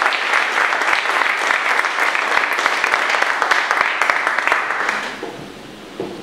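Audience applauding, dying away about five seconds in, with a faint knock near the end.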